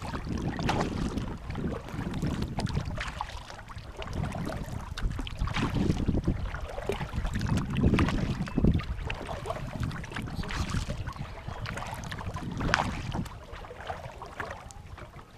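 Wind buffeting the microphone in uneven gusts, with water noise around a kayak on open water.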